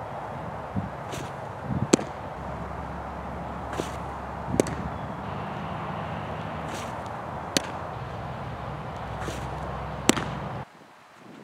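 Baseball pitches smacking into a catcher's mitt: several sharp pops a few seconds apart, the loudest near the end, over steady outdoor background noise that drops away suddenly just before the end.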